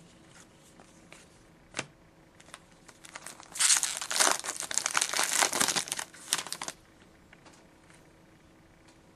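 Foil trading-card pack wrapper being torn open and crinkled: about three seconds of dense crackling starting a few seconds in, after a single light tap.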